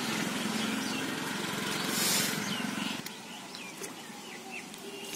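A small engine running steadily, cutting out about three seconds in; after it, birds chirping.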